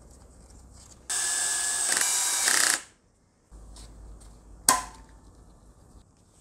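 Cordless drill-driver running for under two seconds, driving in a bolt on the engine's timing chain tensioner. A single sharp click follows a few seconds later.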